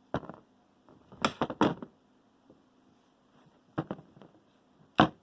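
Joby GorillaPod 1K tripod being handled: several short, sharp plastic clicks and knocks, two of them close together a little over a second in, as its stiff jointed legs are bent and the tripod is moved.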